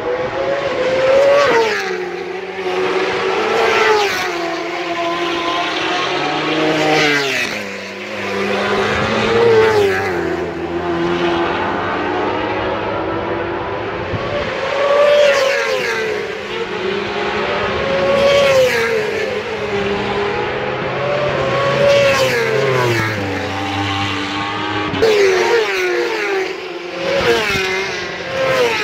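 Superbike racing motorcycles running hard on track, engines climbing in pitch through the gears and dropping at each gear change, over and over.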